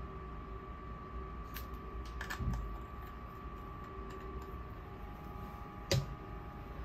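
A few light clicks and taps from handling a plastic sunscreen tube, the sharpest about six seconds in, over a faint steady hum.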